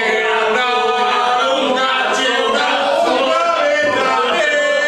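Men singing unaccompanied, a song in long held notes.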